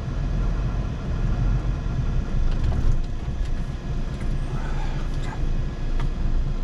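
Heavy truck's diesel engine running with a steady low rumble, with a few faint clicks over it.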